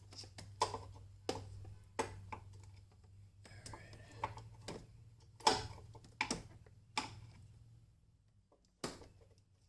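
Irregular clicks and knocks of a battery hold-down bracket and hardware being handled and worked into place in a Jeep's battery tray, about ten strikes, over a faint low hum that stops near the end.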